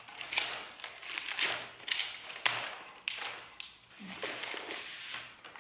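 Packaging wrap crinkling and rustling as it is pulled by hand off a vase, in irregular crackly bursts with short pauses between.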